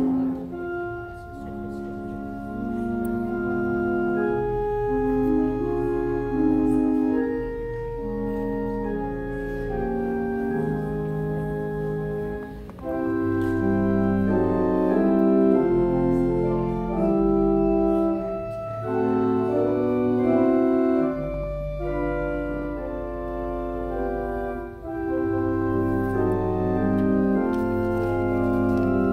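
Organ playing slow, held chords that change every second or so over long, low bass notes.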